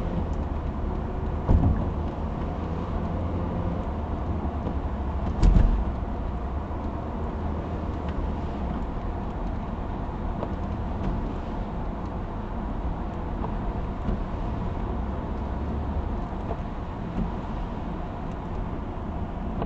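Steady low tyre and engine rumble inside a car driving at about 70–80 km/h. Two short thumps come through, one about a second and a half in and a louder one about five and a half seconds in.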